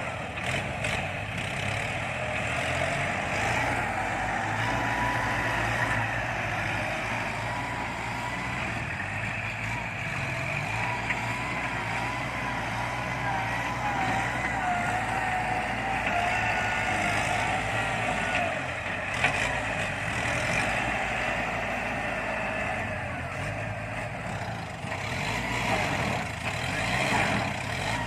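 Kubota tractor diesel engine running under working load, a steady low rumble with a whine that wavers up and down in pitch.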